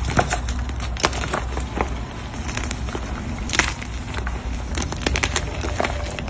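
Dyed gym chalk blocks being crushed: irregular crunchy crackles and crumbling, with a few louder snaps about a second in and again past halfway.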